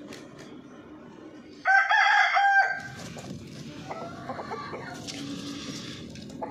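A rooster crows once, loud and about a second long, a couple of seconds in, followed by softer chicken clucks and calls.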